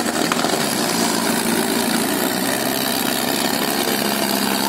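Farm tractor diesel engines running steadily.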